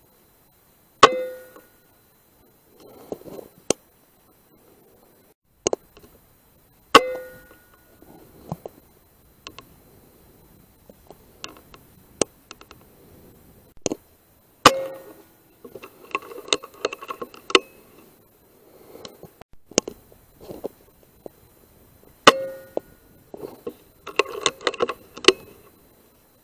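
Air Arms S510 .177 air rifle firing four shots about seven seconds apart, each a sharp crack with a brief ring. Lighter clicks and rattles fall between the shots.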